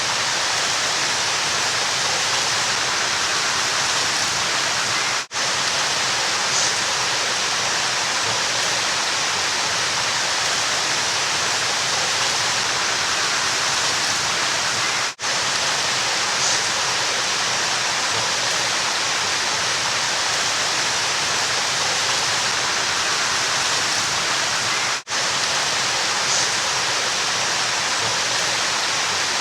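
River water rushing steadily, an even hiss strongest in the upper range, with three brief drops in level about ten seconds apart.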